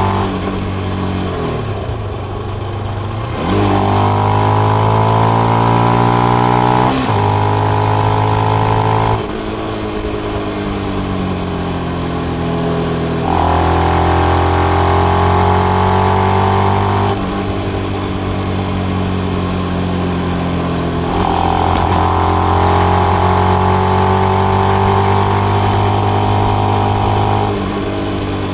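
Benelli BN125 single-cylinder engine running through its stock exhaust with the dB killer fitted. It pulls under throttle in stretches of several seconds, its note climbing gently each time, and eases off in between, three times over.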